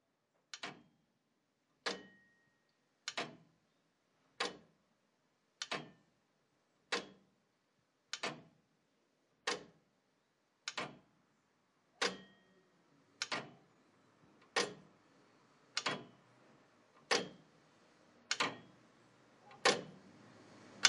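A clock ticking slowly, about one tick every second and a quarter, every other tick a quick double click. The ticks grow louder toward the end over a faint rising background hiss.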